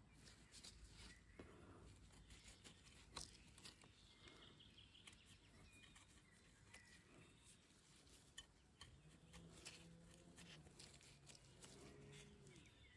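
Near silence: faint soft clicks and scrapes of a knife paring the peel off a lemon, with a few faint bird chirps behind and a faint low drawn-out sound from about nine seconds in.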